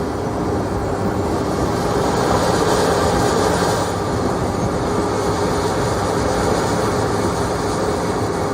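Asphalt milling machine running steadily, a loud continuous machine noise with a steady hum.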